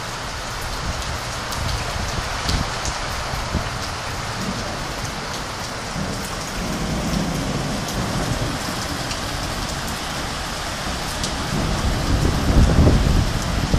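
Heavy rain pouring down with a steady hiss, and thunder rumbling low. One rolling rumble swells about halfway through, and a louder one comes near the end.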